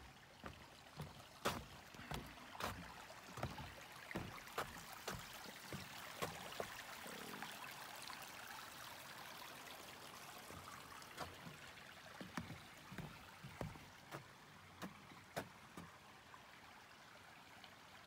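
Footsteps walking at a steady pace, a crisp step about every half second, over the flowing water of Prairie Creek, which swells in the middle and then fades again.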